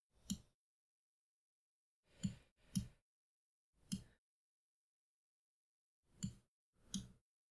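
Six short, faint computer mouse clicks at irregular intervals, about two seconds apart with a couple close together, with nothing heard between them.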